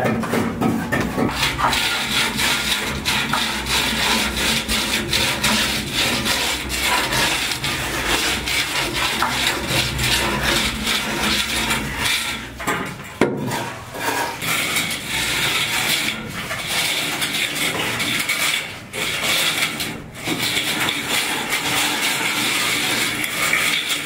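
Plastering tools scraping and smoothing wet cement render on masonry walls: a continuous rough scraping with frequent small knocks, and one sharper knock about halfway through.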